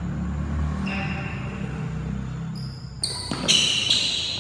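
Badminton rally: sports shoes squeaking on the court floor, and two sharp racket strikes on the shuttlecock about three seconds in, half a second apart.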